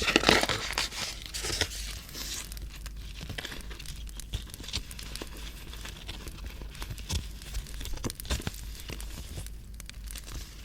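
Paper being handled, crinkled and torn, loudest in the first two seconds. After that come quieter scattered small crackles and taps.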